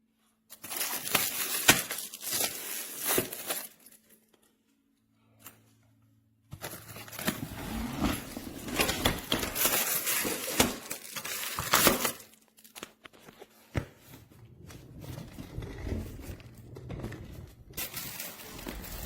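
Crinkling and rustling from handling softshell suitcases and their wrapping, in irregular stretches with a short silent gap near the middle.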